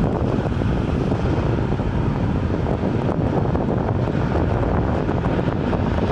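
Steady low rumble of fire apparatus diesel engines idling in the station bays, mixed with wind buffeting the microphone.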